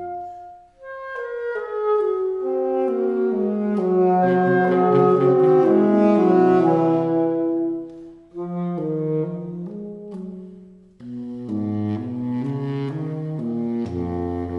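Saxophone trio of alto, tenor and baritone playing overlapping sustained notes that enter one after another. The phrases break off briefly about a second in, near eight seconds and near eleven seconds, and low baritone notes come in near the end.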